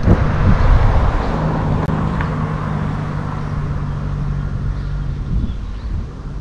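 Wind rumbling on the microphone during the ride, with the tyre noise and steady hum of a passing motor vehicle that is loudest early and fades out a little before the end.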